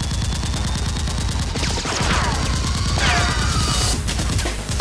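Gunfire sound effect: a fast, continuous stream of automatic shots, with descending whistles like ricocheting rounds about two and three seconds in.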